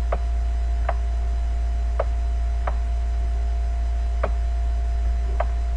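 Steady low electrical hum with about six light, irregularly spaced ticks of a stylus tapping on a tablet screen while handwriting.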